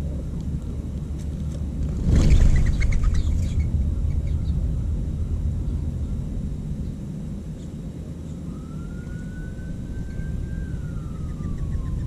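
Low rumble of wind on the microphone. About two seconds in comes a loud flurry of wingbeats as mourning doves flush from the ground. Later a faint single tone rises slowly and then falls away near the end.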